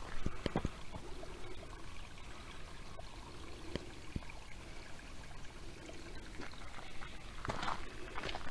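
Creek water trickling over rock, a steady running sound. A few footsteps crunch near the start and again near the end.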